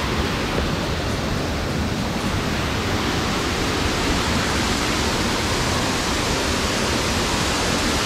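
Steady rush of a waterfall on a mountain headwater stream.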